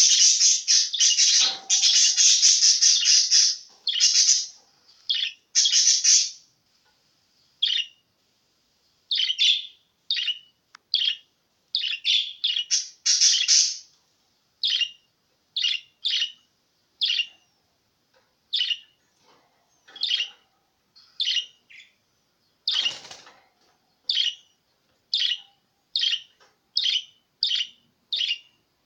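Budgerigar warbling in long, dense runs of high chirps for the first six seconds or so, then giving short separate chirps about once or twice a second.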